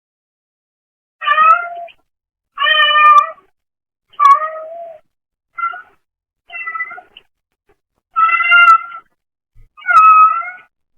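A brown tabby cat meowing repeatedly, about seven separate meows of under a second each with short pauses between. The sound comes through a pet camera's microphone.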